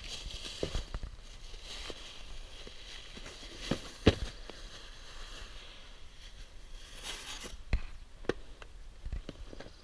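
Plastic bag and packing material being handled: crinkling and rustling with scattered light knocks, and one sharper knock about four seconds in.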